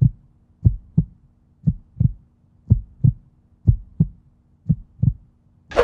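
Heartbeat sound effect: paired low thumps, a lub-dub about once a second, steady in tempo.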